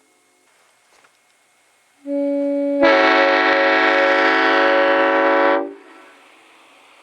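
Well-tuned Nathan Airchime M5 five-chime train horn blown once on compressed air. The lowest bell speaks first about two seconds in, and the full chord joins under a second later. The chord is held for about three seconds, then cut off with a brief ring.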